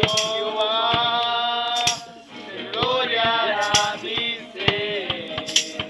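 Singing, with long held notes, over sharp percussive clicks like a shaker or rattle; the singing breaks off briefly about two seconds in and then goes on.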